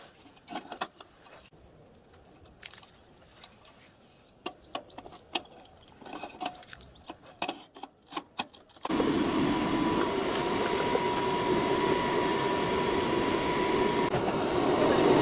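Scattered light clicks and clinks of hands working at the firebox of a miniature steam locomotive as the fire is lit. About nine seconds in, an electric blower fan on the chimney switches on suddenly and runs steadily with a thin motor whine, drawing the fire while steam is raised from cold. It grows a little louder near the end.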